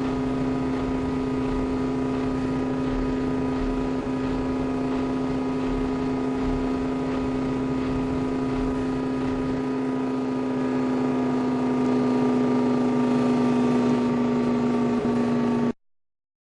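Kenmore washing machine running: a steady motor hum with a low knock about once a second for the first ten seconds, then hum alone, its pitch sagging slightly. It cuts out abruptly near the end.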